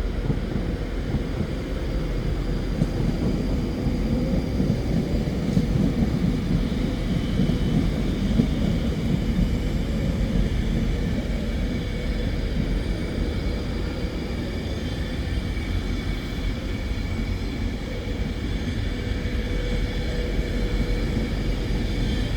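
Train rumbling steadily, with a faint held whine over the rumble, swelling a little midway and easing again.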